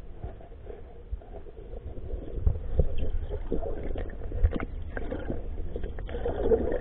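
Muffled underwater rumble and water movement picked up by a submerged camera, with several dull knocks, louder from about two seconds in.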